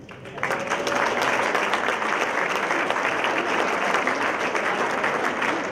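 Audience applauding, dense clapping that starts about half a second in and keeps up steadily.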